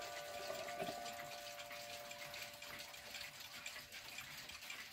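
East German Glashütte mantel clock's chime ringing out after striking, its tones fading away over about the first second and leaving a faint hiss.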